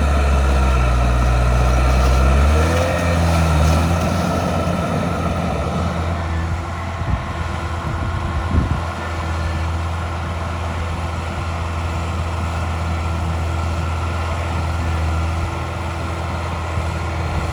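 Heavy diesel engine of earthmoving machinery running steadily under work, its note changing about two and a half seconds in, with a few short knocks around the middle.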